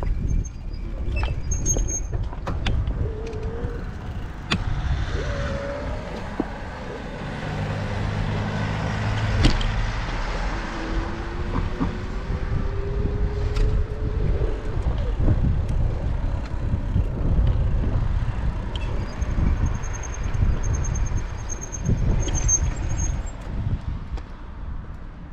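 Wind buffeting the microphone of a GoPro on a moving bicycle, a rough, gusting rumble throughout. A motor vehicle's engine hums by about a third of the way in.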